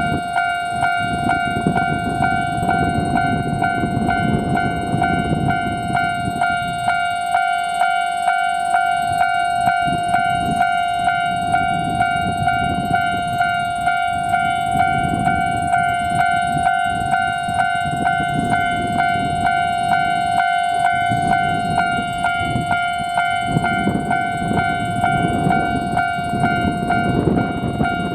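Japanese level-crossing warning bell ringing steadily in an even rapid rhythm, over the low rumble of KiHa 40-series diesel railcars.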